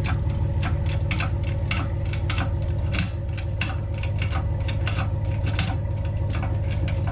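Vehicle engine idling with a steady low hum, under quick, irregular clicking and ticking.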